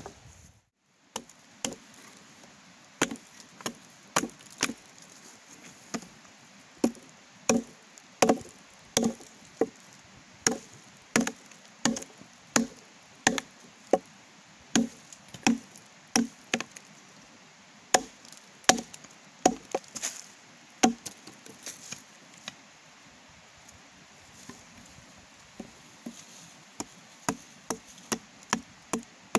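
Chopping wood with a hand blade, an axe or kukri: repeated sharp strikes a little under two a second, which get lighter for a few seconds past the middle and then pick up again.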